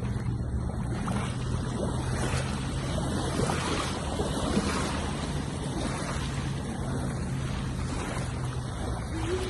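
Water and wind noise out on the water, with wind rushing on the microphone over a steady low hum.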